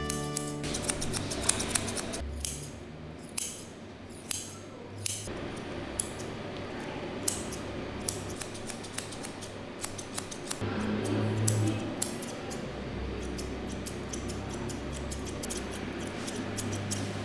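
Grooming scissors snipping through a Persian cat's long fur in short, irregular cuts. Partway through there is a low rumble lasting about a second.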